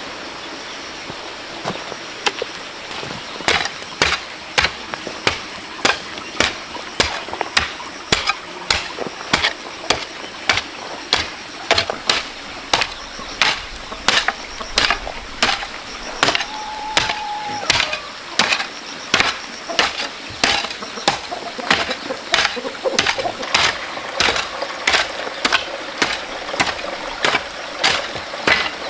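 A hand tool striking into sand and gravel over and over, about two strokes a second, as raw sand is dug out.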